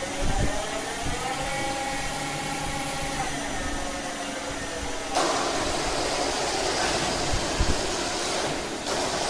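CNC machine running. A motor whine rises in pitch, holds and stops about three seconds in. About five seconds in, a loud hissing rush starts and runs until near the end.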